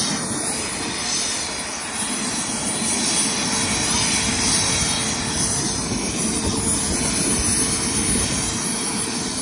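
Helicopter turbine and rotor noise: a steady, loud rush with a faint steady whine.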